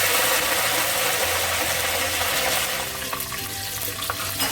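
Curry leaves, mustard, cumin and fenugreek seeds spluttering in hot oil in a clay pot: a dense sizzle that eases off after about three seconds, with a few sharp pops near the end.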